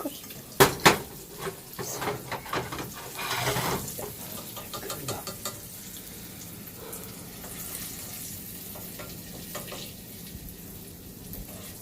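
Breaded okra frying in hot oil, a steady sizzle with small crackles. In the first few seconds a utensil clicks and knocks against the pan, the two loudest knocks about half a second and a second in.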